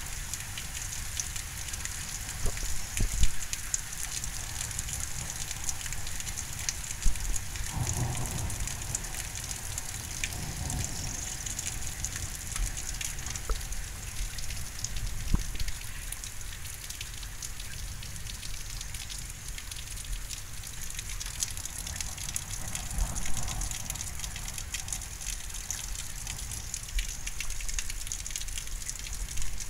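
Thunderstorm rain falling steadily: a constant hiss with scattered ticks of drops. A low rumble comes up about eight seconds in and dies away over a few seconds.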